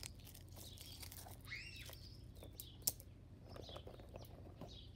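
Faint bird chirps: a couple of high arched calls about a second and a half in and softer ones near the end, with a single sharp click just before the three-second mark.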